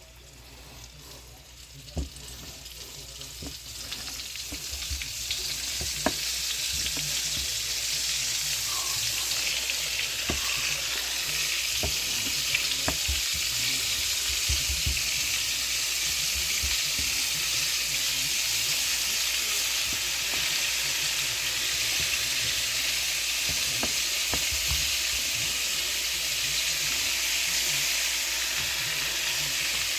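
Catfish battered in flour and egg frying in hot oil: a steady sizzle that swells over the first several seconds and then holds level, with a few sharp pops.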